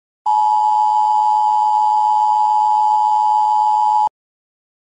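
Emergency broadcast attention tone: a steady electronic tone of two close pitches sounded together, starting a moment in and cutting off abruptly after about four seconds.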